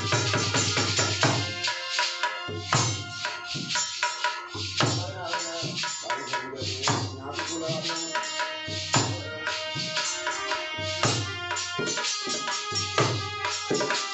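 Live Indian devotional folk music: a harmonium plays a sustained melody over a dholak beating a steady hand-drum rhythm. The drum's deep strokes drop out briefly about every two seconds.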